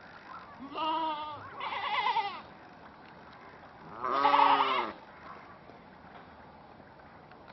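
Three drawn-out animal calls with a wavering pitch: the first about a second in, the second just after it, and the loudest a few seconds later.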